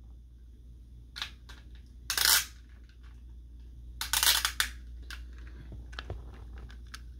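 Hard plastic clicks and two short rattling scrapes, about two and four seconds in, from Beyblade spinning tops and their launchers being handled and readied for launch.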